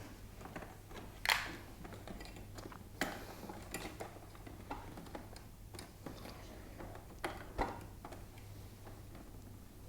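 Scattered clicks and light knocks of hard plastic air-conditioner parts being worked loose and handled, the loudest a little over a second in, over a low steady hum.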